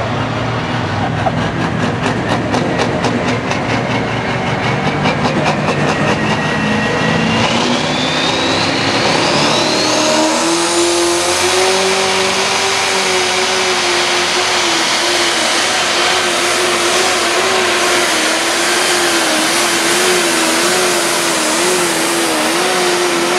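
Massey Ferguson pulling tractor's turbocharged diesel engine making a pull with the sled. It starts pulsing at lower revs, climbs with a rising whine from about six to ten seconds in, then holds at full throttle at a steady pitch for the rest of the run.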